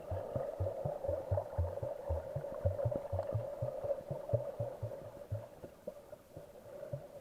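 Electronic background music: a held synth tone over a low pulsing bass line, fading out gradually.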